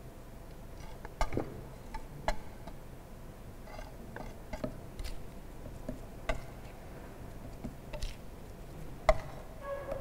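Metal spatula tapping and scraping against a glass plate while soil is mixed with water: scattered sharp clicks and taps, a few ringing briefly, the loudest about a second in.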